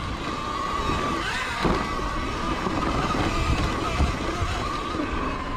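Sur-Ron electric dirt bike running on its belt primary drive along a dirt trail: a steady high motor whine that wavers slightly with speed, over a constant low rumble.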